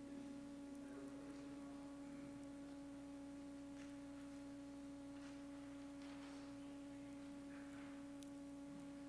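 A faint, steady pure tone held at one pitch without any change, with a few soft shuffling noises around it.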